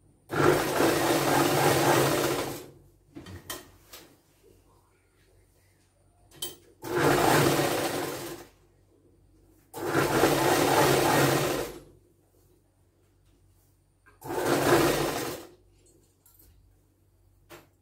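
Sewing machine stitching a seam in four short runs, each starting and stopping abruptly: about two and a half seconds, then two of about two seconds, then a one-second run near the end. Faint clicks and cloth handling fill the pauses between runs.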